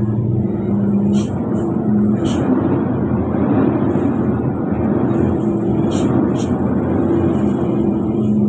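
Heavy vehicle's engine running steadily under the road noise, heard from inside the cab on a long downhill. A few short high hisses sound through it, two near the start and two past the middle.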